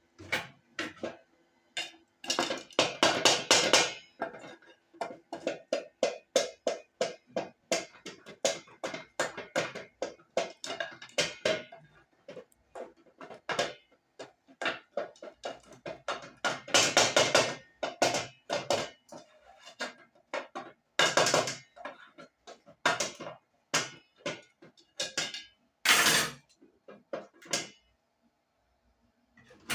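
A fast, irregular run of knocks, bangs and clatters from household things being banged about in a small room, with several louder flurries of clattering.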